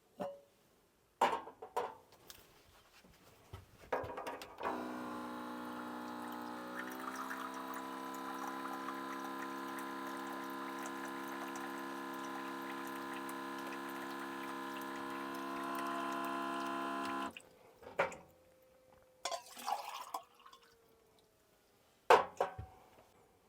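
A few clicks and knocks, then a small motor starts about five seconds in, its pitch rising briefly before it runs steadily with a hum for about twelve seconds and cuts off suddenly, followed by more knocks.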